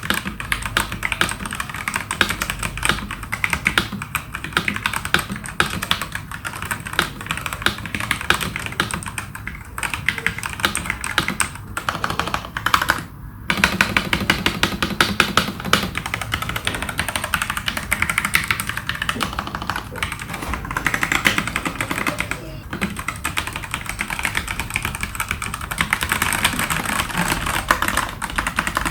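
Continuous fast typing on a mechanical keyboard fitted with 1.5 mm thick PBT XDA-profile keycaps: a dense stream of key clicks and clacks, with a brief pause about twelve seconds in.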